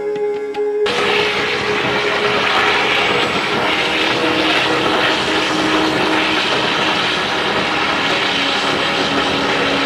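Background sitar-and-tabla music cuts off about a second in, giving way to the loud, steady roar of a commercial kitchen's ventilation and cooking equipment, with a faint hum running under it.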